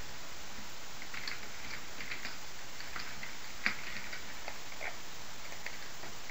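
Keys clicking on a computer keyboard as a short phrase is typed, over a steady hiss. There is one sharper click a little past halfway.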